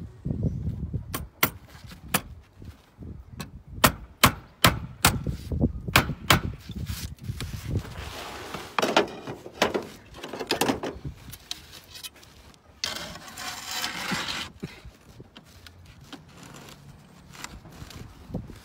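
A quick, irregular run of sharp hammer taps and hard knocks on roof slate, over a low rumble. Then rough scraping as the replacement slate is slid against the surrounding slates into position, once about halfway through and again a few seconds later.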